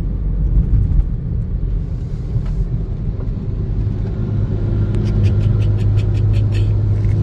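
Low, steady road rumble of moving vehicles, with a new Farmtrac 60 tractor's engine among them. A deep steady engine hum grows stronger about four seconds in, and a quick run of light clicks or rattles comes near the end.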